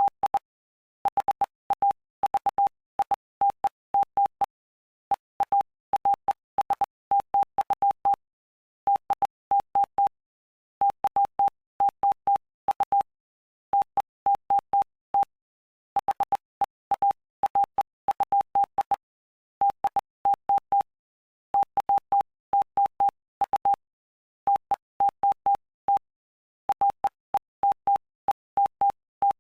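Morse code: a single steady beep keyed on and off in short dots and longer dashes, sent in groups (words) with short pauses between them.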